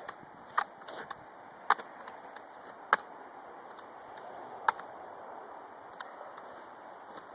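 A multi-pump .177 air rifle being pumped: four sharp clacks spread over about four seconds, with a few fainter clicks between them.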